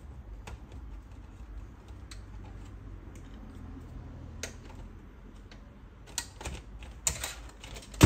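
Scattered light clicks and taps of hands handling the plastic drive caddy and metal chassis of an open small-form-factor desktop computer, a few more and louder near the end, over a low steady hum.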